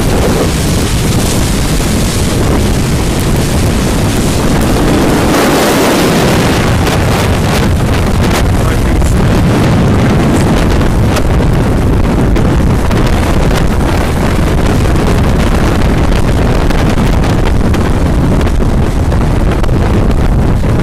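Strong nor'easter wind buffeting the microphone, a loud, continuous rumble, with the hiss of breaking surf that thins out about six seconds in.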